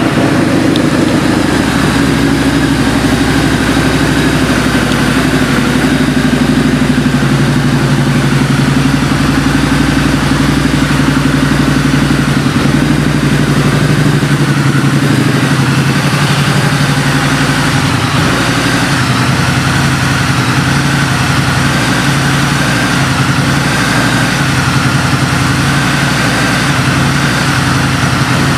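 2009 Harley-Davidson V-Rod Muscle's 1250 cc liquid-cooled Revolution V-twin idling steadily through Vance & Hines aftermarket exhaust.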